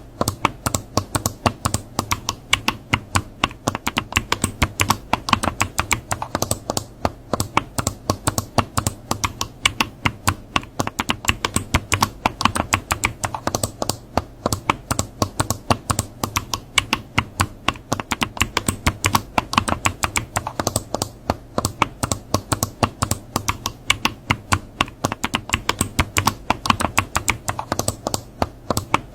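Continuous fast typing on a computer keyboard: a dense, even stream of key clicks.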